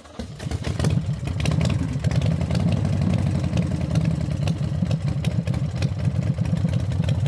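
Harley-Davidson V-twin motorcycle engine idling with a rapid exhaust beat, growing louder over the first second and then steady.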